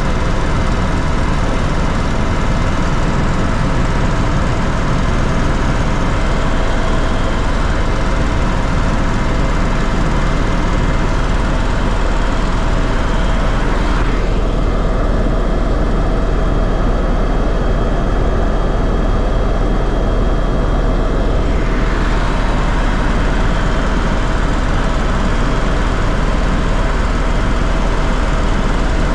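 Loud, steady engine drone and rumble heard from inside a sightseeing aircraft in flight, with a few steady tones running through it. For several seconds around the middle the higher part of the noise drops away, leaving a duller sound before it returns.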